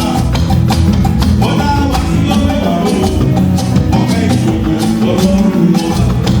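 A church anthem performed with singing over a band, with a steady, quick percussion beat.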